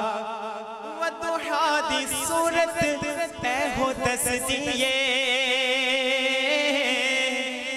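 A young man singing a devotional hamd into a microphone, holding long wavering, ornamented notes without words between verses.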